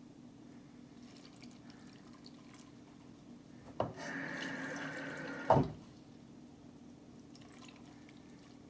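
Water running from a kitchen tap into the cooking pot for about two seconds, starting with a click about four seconds in and cutting off abruptly, as water is added to the fish dish. A low steady hum runs underneath.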